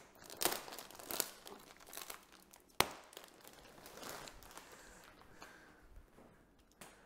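Plastic wrapping on a rolled futon mattress crinkling and rustling as it is handled, cut and begins to unroll, with a few sharp clicks, the loudest a little under three seconds in.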